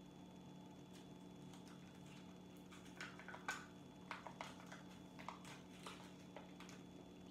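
Faint clicks and scrapes as a small plastic baby food cup is handled and a spoon scrapes inside it, starting about three seconds in, over a faint steady hum.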